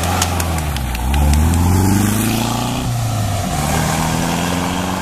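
Vintage rally car's engine pulling away from a standing start. It revs up with pitch rising for about two and a half seconds, drops at a gear change about three seconds in, then climbs again more gently. A few sharp clicks come in the first second and a half.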